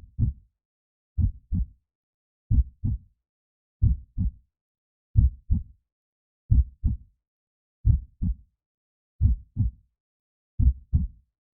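Heartbeat sound, a low double thump (lub-dub) repeating slowly and evenly about every 1.3 seconds, with silence between beats.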